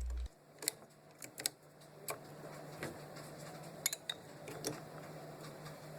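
Light clinks and clicks of glass flasks against a metal shaker clamp, about seven short knocks at irregular spacing, over a faint steady hum.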